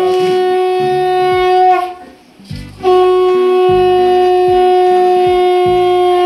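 Conch shell blown in long, steady, unwavering blasts: one ends about two seconds in, and after a short break a second begins about three seconds in and is held.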